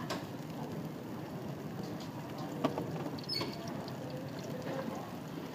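Liquid sizzling in a hot wok: a steady hiss with a few light clicks.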